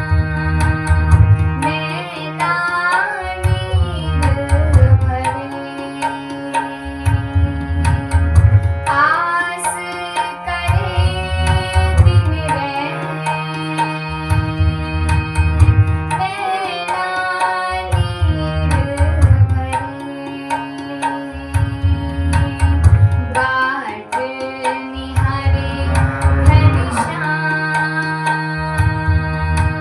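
Devotional bhajan music: tabla playing a steady rhythm under sustained held instrumental tones and melodic phrases that rise and bend every few seconds.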